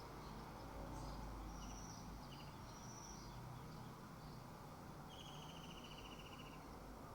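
Orange-headed thrush (anis kembang) singing faintly: a few short high whistled notes, then a longer rapid trill about five seconds in, over a steady background hiss.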